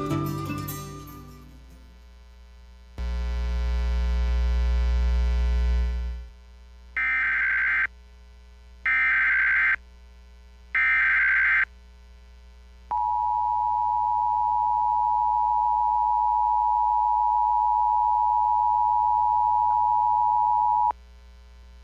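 Emergency Alert System broadcast tones. After music fades and a three-second burst of rumbling noise, three short bursts of SAME digital header data sound, evenly spaced. Then the two-tone EAS attention signal (853 and 960 Hz) sounds steadily for about eight seconds and cuts off suddenly.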